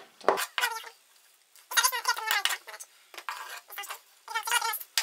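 A spoon clinks against the metal inner pot of a multicooker, and grated carrot is scraped off a wooden cutting board into the pot. High, wavering voice-like sounds come about two seconds in and again near the end.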